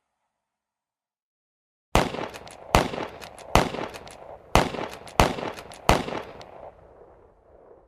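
A series of six sharp bangs, each trailing off in a ringing echo, spaced well under a second to a second apart, after about two seconds of silence.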